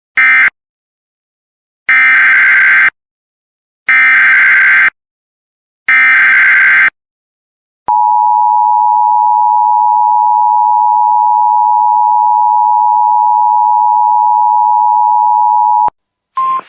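Emergency Alert System tones: the last short burst of an end-of-message code, then three one-second bursts of SAME header data tones a second apart, then a steady eight-second EAS attention tone announcing a new warning. A brief higher tone sounds near the end.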